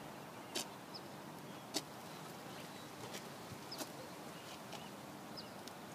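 Rollator walker pushed slowly along a concrete sidewalk: a faint steady outdoor hush broken by scattered light clicks and knocks from the walker's wheels and frame.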